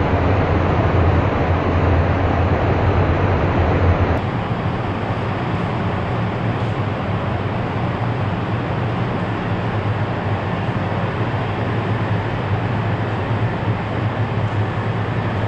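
Steady low hum and rumble of a 500 series Shinkansen train at a station platform, moving slowly or standing. The sound changes abruptly about four seconds in, where the low hum becomes lighter but stays steady.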